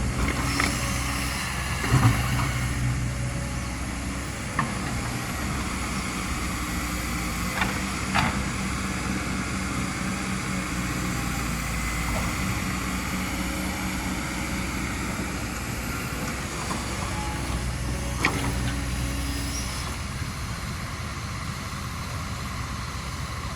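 Kobelco SK200 excavator's diesel engine running steadily as it loads soil, with a few sharp knocks about two, eight and eighteen seconds in.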